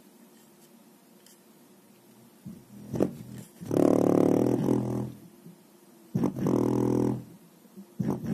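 Bass shaker (tactile transducer) being driven with bass: after a short quiet spell, a knock, then two buzzing bursts of about a second each, separated by a pause, and a couple of sharp knocks near the end.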